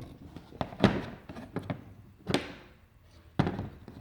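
About half a dozen separate knocks and taps from hard objects being handled and set down, the loudest about a second in. No motor is running.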